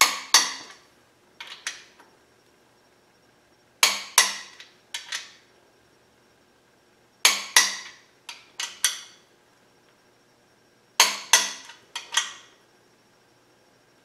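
Click-type torque wrench clicking as the main bearing cap bolts of a small-block Chevy 350 four-bolt-main block reach 75 ft-lb, with metal clinks from the socket and wrench. The sharp clicks come in four groups about every three and a half seconds.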